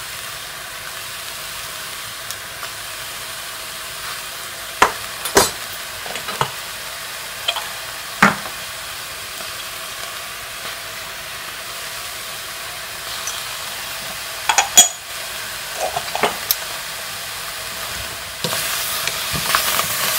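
Spoonfuls of ground spices tipped into a steel pot of sliced tori and tomato, with a few sharp taps of the spoon against the pot. Near the end a wooden spoon starts stirring the vegetables and meat, a louder rustling scrape, over a steady hiss.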